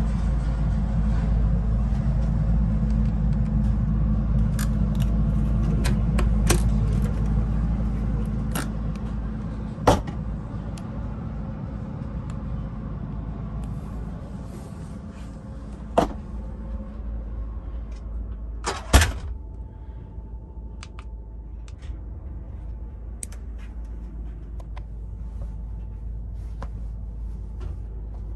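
Steady low rumble of a sleeper train coach, easing off after about eight seconds, then a few sharp clicks and knocks from a cabin door and its lock, the loudest a double knock about two-thirds of the way through.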